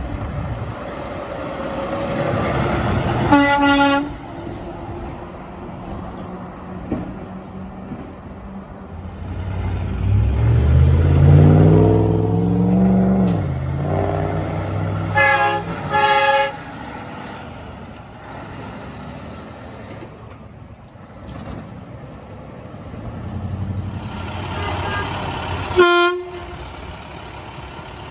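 Semi-truck air horns. About 3 s in, a Freightliner Cascadia sounds its Hadley air horn in one short blast. Around 10 s in, a Peterbilt 386's diesel engine revs up, rising in pitch as it pulls away, followed by two short air-horn toots; a final short horn blast comes near the end.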